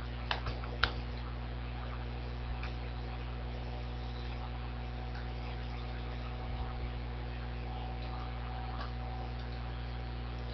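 Steady electrical mains hum, with a few sharp clicks in the first second and fainter scattered clicks later.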